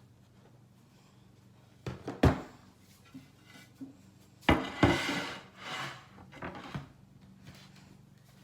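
Objects being set down and handled on a table: a few sharp knocks, the loudest about two seconds in, then rustling and scraping for a couple of seconds.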